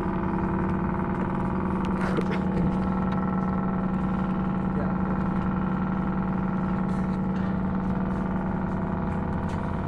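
Steady low drone of a ship's engine running on the harbour water, holding one pitch throughout with a hum of even overtones.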